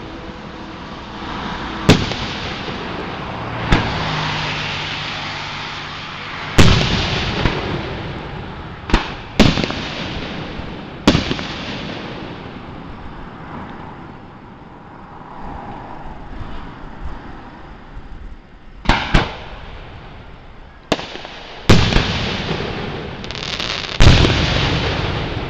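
Aerial fireworks shells bursting: about a dozen sharp booms at uneven intervals, each followed by a long echoing rumble, with a quieter lull in the middle.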